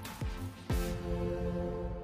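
Electronic background music: two deep bass hits that drop in pitch within the first second, then a held chord.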